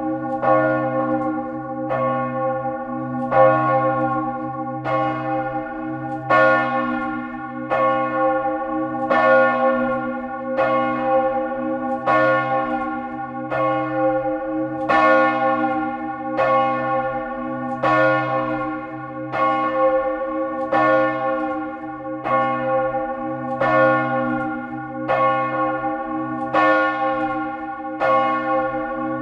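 A large church bell, the great bell (Grand'Cloche), swinging in full peal with a high swing, its clapper striking the rim about once a second. The low hum rings on unbroken between strikes, heard close up inside the belfry.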